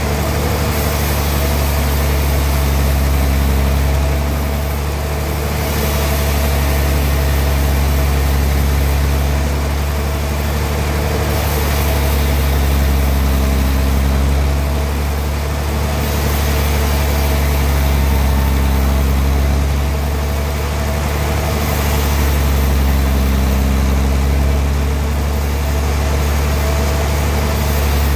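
Homemade portable sawmill's engine running steadily with a deep hum, its level swelling and easing every few seconds.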